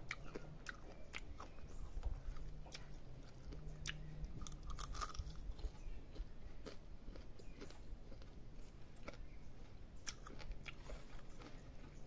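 A person chewing a whole insect with the mouth close to the microphone: irregular small crunches and clicks.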